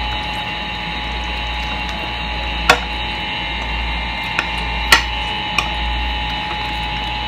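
Spoons clinking against a ceramic plate a few times, the sharpest clinks about two and a half and five seconds in, over a steady machine hum and whine.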